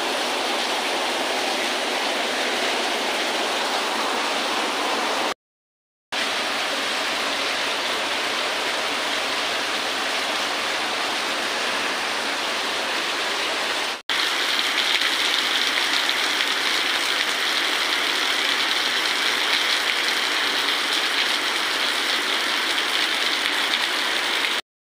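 Heavy rain falling steadily, a dense even hiss. It drops out for under a second about five seconds in, and after a cut near the middle the hiss is a little louder and higher.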